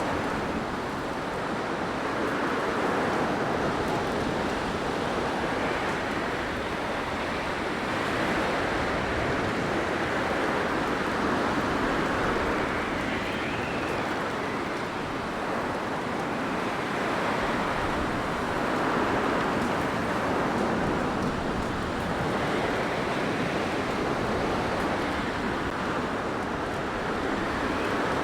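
Blizzard wind as a steady rush of noise that swells and eases every few seconds.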